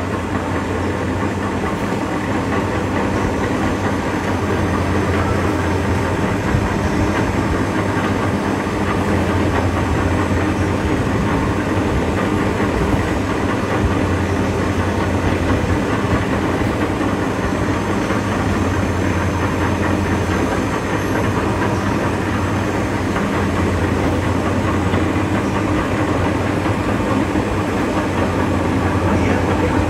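Bar thread rolling machine running steadily: a low motor hum that swells and eases every few seconds, under a constant mechanical noise.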